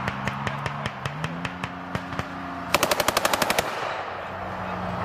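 Automatic gunfire: scattered single shots, then a rapid burst of about a dozen rounds nearly three seconds in. Underneath runs the steady engine drone of a USMC LAV-25 eight-wheeled armoured vehicle driving past, rising in pitch a little after one second in.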